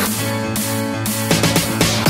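Electronic dance music soundtrack in a break where the steady beat thins out under held synth tones.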